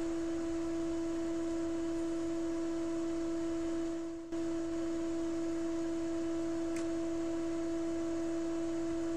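A steady electronic tone at a single pitch, with a fainter tone an octave above, dipping briefly about four seconds in.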